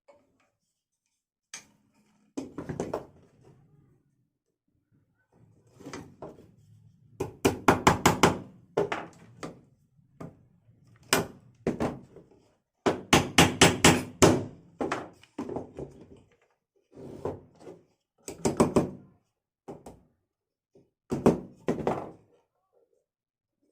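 Knocking and tapping on wooden cage parts: single knocks and quick runs of several strokes, with short pauses between.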